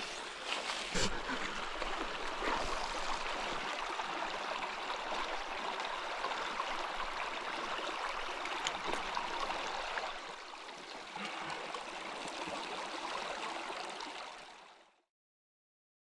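Steady rush of a flowing stream, with a single knock about a second in; the water sound fades out near the end.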